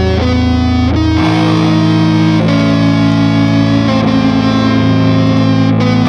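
Music led by a distorted electric guitar, playing held notes that change every second or two.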